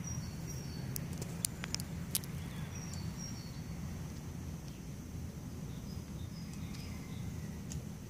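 Outdoor garden ambience: a steady low rumble with a few short, high bird chirps, and several sharp clicks about one to two seconds in.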